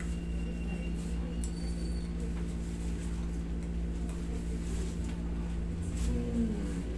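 Steady electrical hum of a window air conditioner, with a brief low vocal sound about six seconds in as the man's shoulder is stretched.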